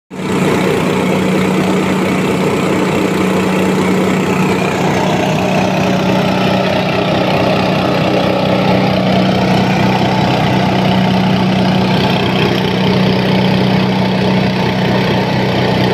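Rice husk grinding machine running steadily: a constant machine hum under a dense, even grinding noise as husks are milled into fine bran.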